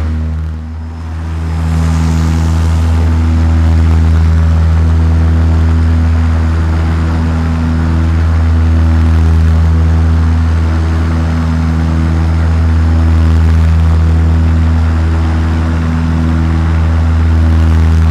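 Goodyear airship's engine and propeller heard from inside the gondola in flight: a steady low drone that holds one pitch. It dips briefly about a second in.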